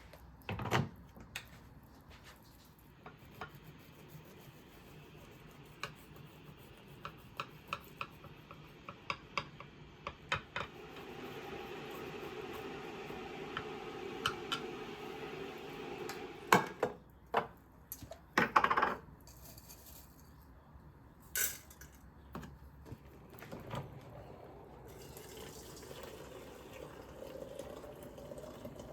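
Kitchen work sounds: dishes and cutlery clinking and knocking in scattered strokes, with a tap running for several seconds in the middle and a few louder knocks after it.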